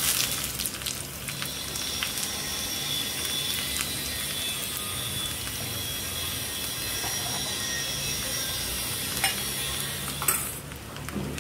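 Chopped onions sizzling in hot coconut oil with mustard seeds in a small pan. A burst as they are tipped in, then a steady frying hiss, with a couple of clicks and a brief quietening near the end.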